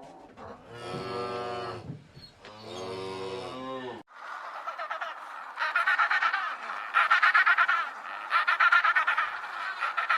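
A cow mooing twice, two long low calls. About four seconds in it cuts to a flock of waterfowl calling, a dense rapid chatter of honks and quacks that grows louder in several bursts.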